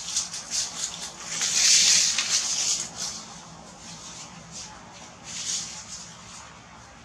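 Dry leaves and brush rustling in a run of short scratchy crackles, swelling loudest for about a second and a half a little after the start.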